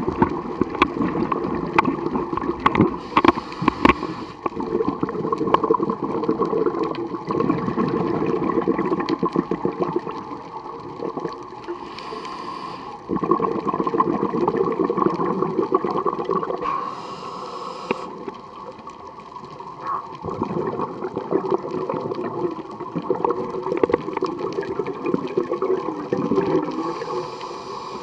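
Scuba regulator breathing underwater: four short hissing inhales, each followed by a long stretch of gurgling, crackling exhaust bubbles.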